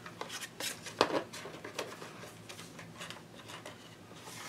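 Light clicks, taps and rubbing of a clear plastic embossing folder and heavy cardstock being handled and closed together, with a sharper tap about a second in.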